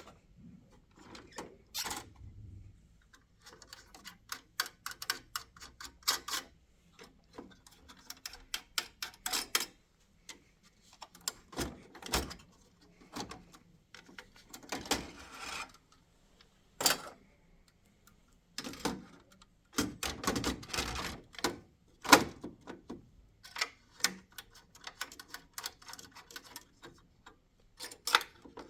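Irregular clicks, knocks and short scrapes of plastic and metal parts being handled as the fuser unit of a Xerox VersaLink C620 laser printer is worked out and in, with latches and covers clicking.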